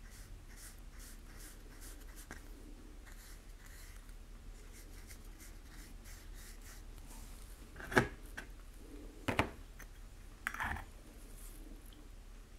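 Fine paintbrush stroking paint onto a 3D-printed plastic badge: faint, repeated scratchy strokes. Past the middle come three louder, sharp knocks.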